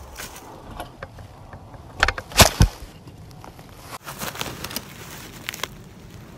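Handling noise of a camera being knocked down into dry brush: scuffing and rustling, with three heavy thuds in quick succession about two seconds in, then lighter rustling and clicks.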